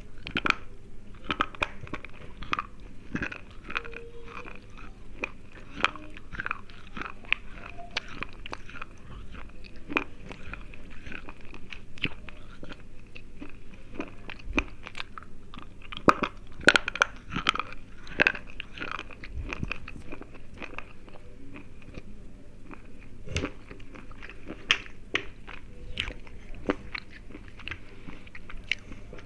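Close-up biting and chewing of thick, crunchy slate pencils: a run of sharp, brittle crunches and crackles between chewing, loudest in a cluster a little past halfway.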